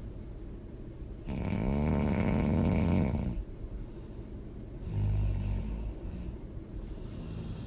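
A person snoring loudly. A long snore starts about a second in and lasts some two seconds, followed by a shorter, weaker snore near the middle, with quieter breathing in between.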